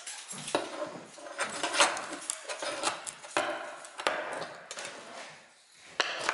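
Flat steel pry bar knocking and scraping against a wooden carpet tack strip, working it up off its nails on a wooden subfloor, with a sharper knock about six seconds in as the strip comes loose.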